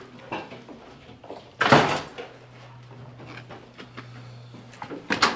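A loud bang about two seconds in and a smaller sharp knock near the end, with a steady low hum starting after the first bang.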